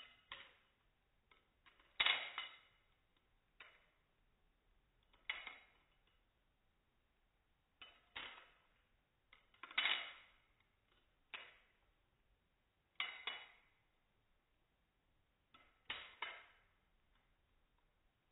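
Balisong (butterfly knife) handles and blade clacking and clinking against each other as the knife is flipped slowly through a scissor trick. The sharp clacks come singly or in pairs every couple of seconds, the loudest about two seconds in and again near the middle.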